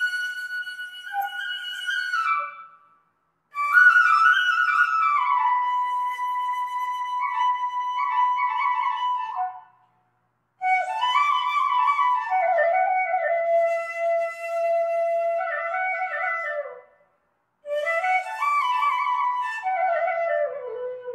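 Solo flute-like woodwind playing a slow melody in long phrases with held notes, separated by brief pauses about three, ten and seventeen seconds in.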